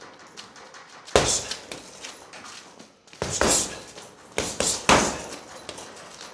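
Punches landing on a hanging heavy bag: about six sharp thuds, one about a second in, then a quick flurry between three and five seconds.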